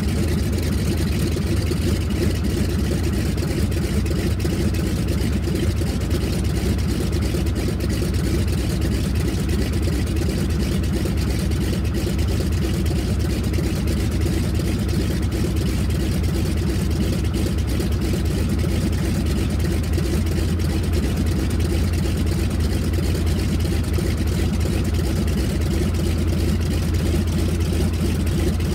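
Spartan Executive's Pratt & Whitney R-985 Wasp Junior nine-cylinder radial engine idling steadily, with no change in speed.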